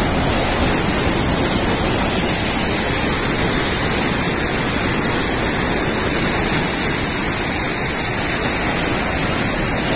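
Steady, loud roar of a river in flood: fast, churning muddy water rushing past just beneath a bridge.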